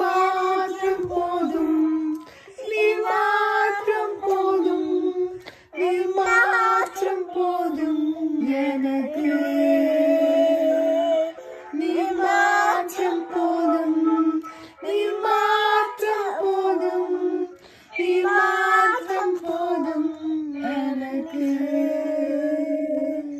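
A young child singing a worship song into a toy karaoke microphone, her voice amplified by it, in phrases of a few seconds with short breaks.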